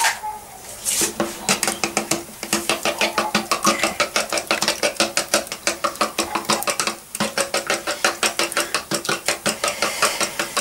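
Fork beating eggs in a small plastic bowl: quick, steady clicking and tapping of the fork against the bowl, several strokes a second, with a short pause about seven seconds in.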